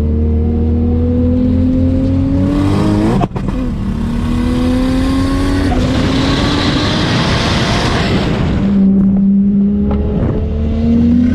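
Turbocharged Nissan RB26 straight-six in a VL Commodore accelerating hard, revs climbing through the gears with a sharp gear change about three seconds in. A loud hissing rush follows mid-way, then the engine holds a steady note before pulling up again near the end.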